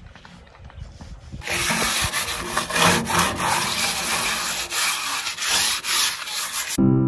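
Green scouring pad scrubbing the steel tray of a wheelbarrow in repeated rasping strokes, starting about a second and a half in after a quiet stretch. Soft music comes in just before the end.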